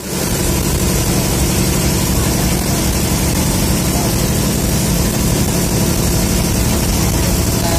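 Bus diesel engine running steadily while the bus is under way, heard from inside the driver's cabin with constant road and cabin noise.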